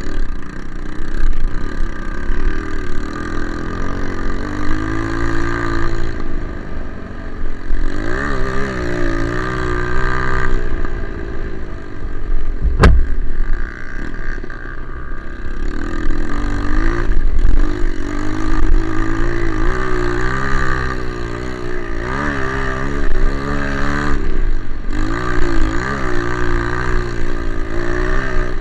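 Single-cylinder four-stroke trail motorcycle engine running under way, its revs rising and falling over and over. There is one sharp knock about halfway through.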